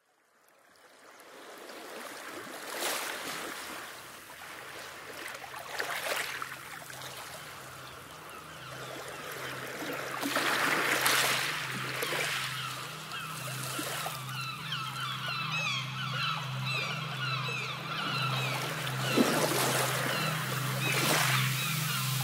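Sea water washing and splashing, fading in and swelling several times. In the second half a steady low hum and many short chirping bird calls join it.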